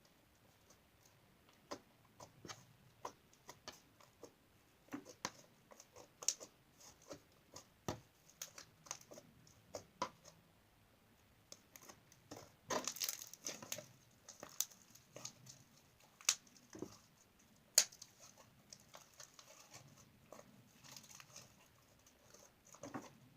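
Slime being squeezed and pressed by hand, giving irregular sticky clicks and small pops, with a denser crackling stretch about halfway through.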